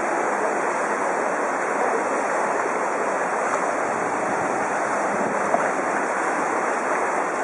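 Steady rushing and churning of floodwater around a bicycle moving through a flooded street, with wind buffeting the microphone. One brief tick about two-thirds of the way in.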